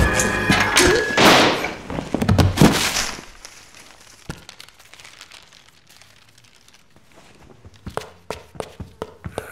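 A loud thunk as the music cuts off, followed by crashing noise for about three seconds. Then it goes quiet, and a series of light taps comes near the end.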